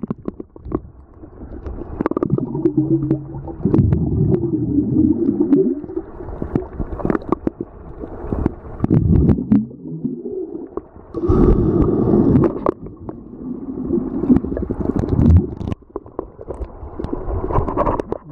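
Swimming-pool water heard through a waterproof camera's microphone held underwater: muffled low rumbling and gurgling that swells and fades unevenly, with scattered sharp clicks.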